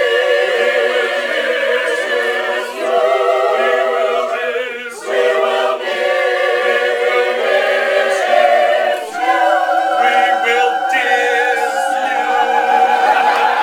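Mixed men's and women's choir singing in parts, in phrases of sustained notes with vibrato, with the last note held for several seconds.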